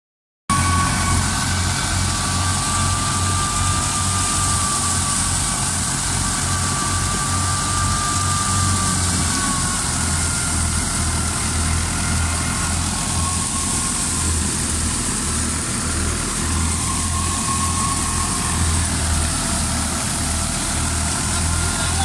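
Tractor-driven wheat thresher running steadily: a pulsing low engine drone with a thin high whine over it that fades about halfway through, and a steady hiss on top.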